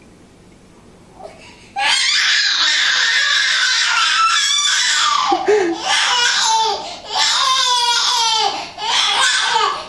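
Infant crying in a fit of fussing: quiet for the first couple of seconds, then loud, high-pitched cries in long stretches, broken three times by short pauses for breath.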